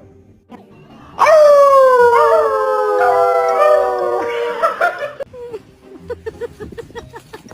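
Dog howling: one long, loud howl of about four seconds that slowly falls in pitch and wavers a couple of times. A run of faint quick ticks follows.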